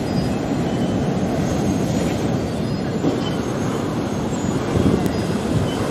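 Rough sea with waves breaking and churning into foam, a continuous low rushing noise.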